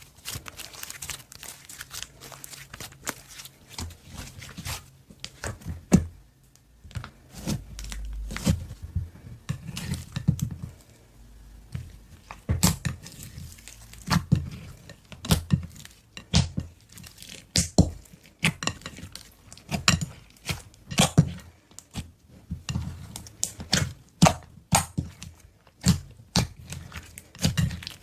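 Slime being squished and pressed by hand: irregular crackling clicks and pops with soft low thuds.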